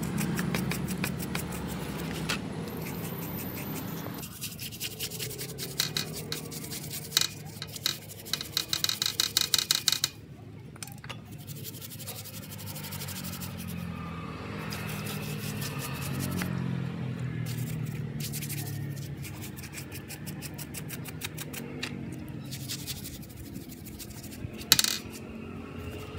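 Wire brush scrubbing the aluminium crankcase gasket face of a Honda Vario 150 engine in short scratchy strokes, with a quick run of about five strokes a second about a third of the way in and a sharp click near the end. The mating surface is being cleaned of old residue before a new gasket is fitted.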